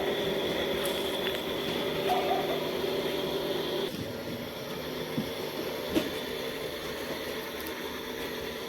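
A steady motor hum that drops away sharply about four seconds in, leaving a fainter hum with a few brief chirp-like blips.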